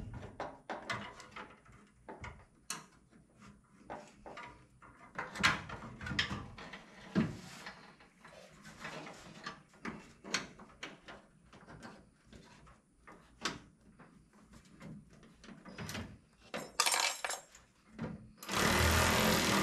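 Hand tools working on an engine: irregular metal clinks, clicks and knocks as parts and bolts are handled and tightened. Near the end a loud, steady machine noise starts.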